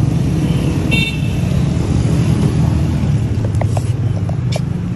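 Street traffic running steadily, with a short vehicle horn toot about a second in. Near the end come a few small clicks and knocks as someone gets into a car.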